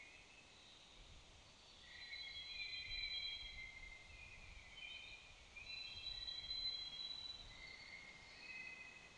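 Faint woodland ambience: distant birds singing, a layering of high, steady whistled notes that overlap one another, over a faint low rumble.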